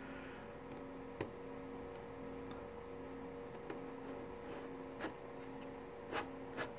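Light plastic clicks and taps, about five of them spread over several seconds, as hands handle and fit the plastic turret race ring of a Tamiya M1A2 RC tank kit, over a faint steady hum.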